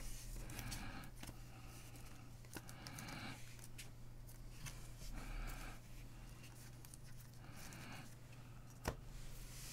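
Sleeved trading cards in rigid plastic top-loaders being handled and slid against one another: faint scraping rustles every couple of seconds with scattered small clicks, and one sharper click near the end. A low steady hum runs underneath.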